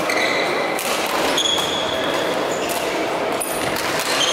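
Doubles badminton rally: racket hits on the shuttlecock, with players' shoes squeaking and stepping on the hall floor, echoing in a large sports hall.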